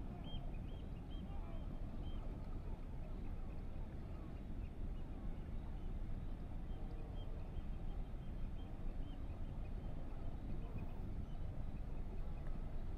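Steady outdoor rushing noise, heaviest in the low range, with a small bird's short, high chirps at the start and again from about six to ten seconds in.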